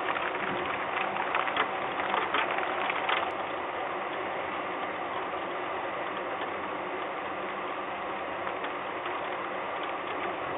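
Rain and wind noise on an outdoor camera microphone during a storm: a steady rushing hiss with a crackle of drop hits through the first three seconds, then steadier, over a faint steady hum.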